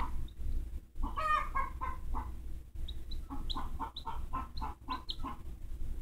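Chickens clucking and squawking in a run of short, repeated calls. The hens are agitated, and it sounds as if a hawk has just taken one of their chicks.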